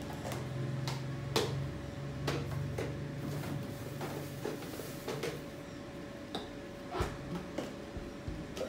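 Irregular light clicks and knocks of kitchen containers being handled at an open refrigerator, over a steady low hum.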